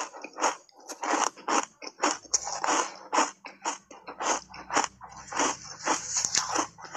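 Refrozen ice coated in matcha powder being chewed, a run of sharp crunches about three a second.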